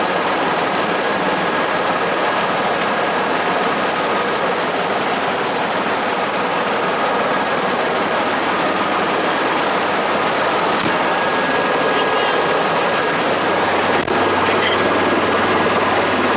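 Helicopter running, heard from inside the cabin: a steady rush of rotor and turbine noise with a thin high whine, and a low hum that comes in near the end.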